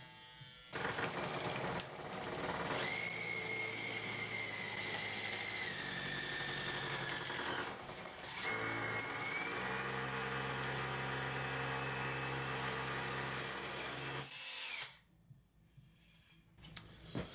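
Makita cordless drill spinning a spruce strip through the serrated jaws of a bench vise, the jaws scraping the wood round into a dowel. The motor whine drops in pitch as it loads up, stops briefly about eight seconds in, then runs again and stops about fourteen seconds in.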